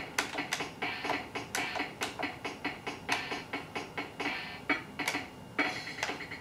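A toddler tapping the keys of a Meowsic cat-shaped toy keyboard: short plastic key clicks with brief electronic notes, several a second at an uneven pace.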